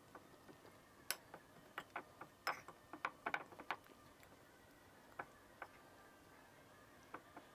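Metal spoon clinking against a ceramic bowl while stirring a dry, crumbly nut-flour crust mix: faint, irregular clicks, frequent for the first few seconds and sparse later.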